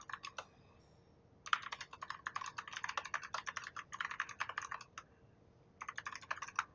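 Typing on a computer keyboard: a few keystrokes at the start, a fast run of keystrokes from about a second and a half in until about five seconds, then a short burst near the end.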